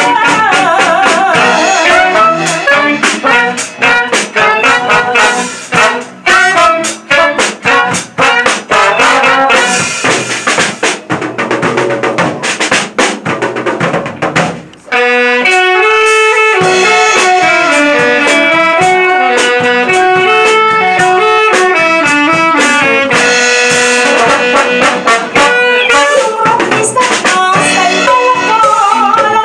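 Live band playing at rehearsal with a female singer on microphone over the band. Through the first half, dense, rapid percussion dominates. From about halfway, an instrumental melody line carries on over steadier accompaniment, and the singing comes back near the end.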